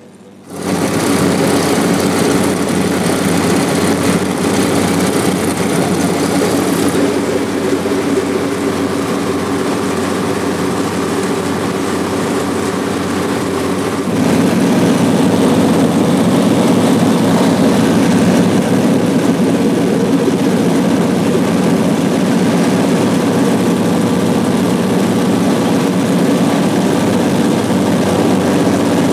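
Piston engines and propellers of a Bushmaster 2000 Trimotor droning steadily in flight, heard from inside the cabin with a hiss of rushing air. It starts abruptly just after the start and gets louder about halfway through.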